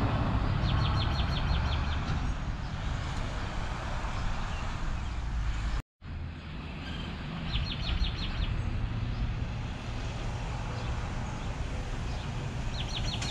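Street ambience: a steady low rumble of vehicles at a roadside crash scene with a tow truck, with a bird's quick trill of rapid high chirps heard three times, near the start, about halfway and near the end. The sound drops out for an instant about six seconds in.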